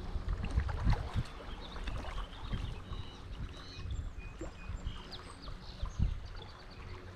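Creek water sloshing and splashing around a wading angler, with several low thumps, the strongest about a second in and again near the end. Short high bird chirps come in the middle.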